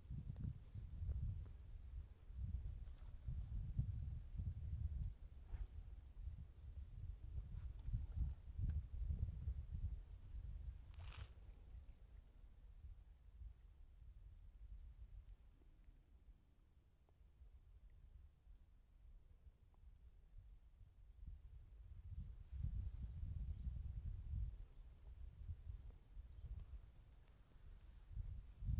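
Crickets trilling in one steady, unbroken high note, with gusty wind buffeting the microphone as a low rumble that eases off in the middle and picks up again near the end.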